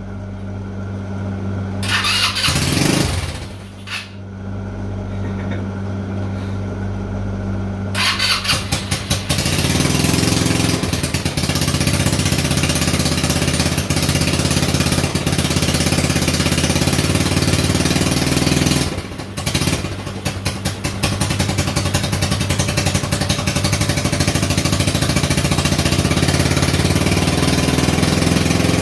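Small motorcycle engine on a mini bike being started after sitting unused for two years and running. It gets much louder and rougher about eight seconds in, falters briefly near twenty seconds, then runs on steadily. Its carburetor is overflowing, which the owner puts down to a stuck float.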